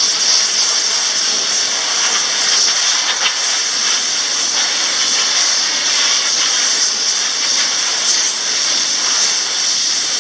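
A steady, loud hiss of compressed air from an air compressor, blown through a washable electrostatic furnace filter to clear out the trapped dust.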